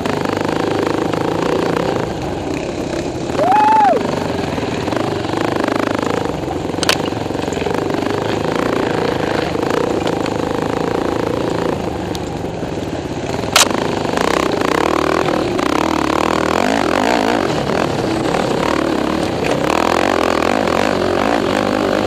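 ATV engines running hard at race pace, heard through a helmet camera with wind and buffeting on the mic. A brief rising-and-falling whine comes about four seconds in, and two sharp knocks come at about seven and thirteen seconds in.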